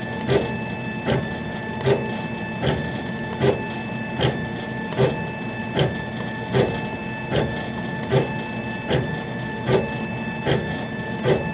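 Chinese-made laser engraver running a raster engraving job on leather: a steady machine hum and whine from its motors, with a regular louder pulse about every 0.8 seconds.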